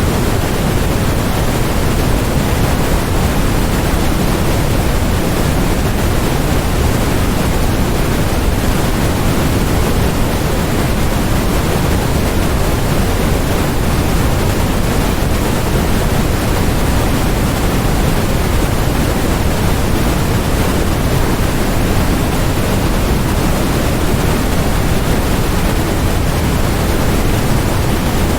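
Steady generated white noise: an even, unchanging hiss across the whole range, heavier in the lows than in the highs.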